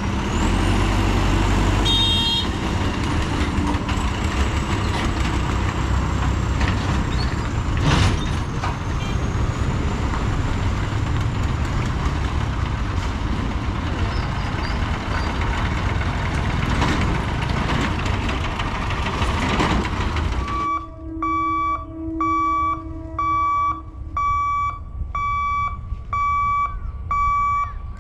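Road traffic at a level crossing: vehicle engines running and tyres rolling, with a horn tooting briefly about two seconds in. After about twenty seconds it cuts to a level-crossing warning beeper sounding a steady series of electronic beeps, a little more than one a second, with the boom barrier down.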